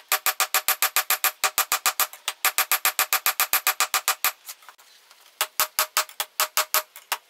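Hand hammer forging red-hot leaf spring steel on a small steel block anvil: quick blows about five a second, each with a metallic ring. The hammering stops about four seconds in and starts again about a second later.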